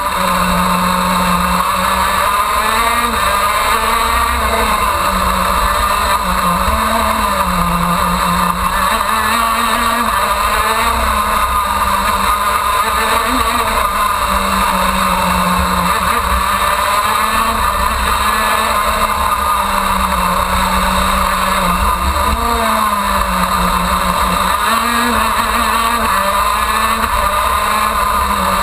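Onboard sound of a KZ2 shifter kart's 125cc two-stroke engine racing at full throttle, its note repeatedly dropping and climbing again as it brakes into and accelerates out of corners. Low rumble of wind and vibration on the microphone underneath.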